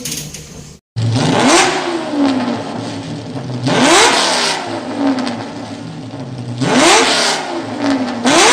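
Suzuki Carry Futura 1.5 engine being revved in four blips about every three seconds, each one rising quickly and dying away slowly. It starts abruptly about a second in.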